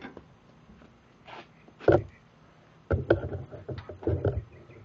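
Handling knocks and rubbing as a metal strip is set against a trailer's plywood side: one sharp knock about two seconds in, then a run of irregular knocks and scraping for about a second and a half.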